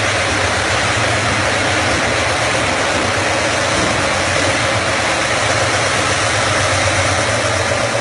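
Stone polishing machine running, its electric motor and grinding head working a grey granite slab with a loud, steady grinding hiss over a low hum.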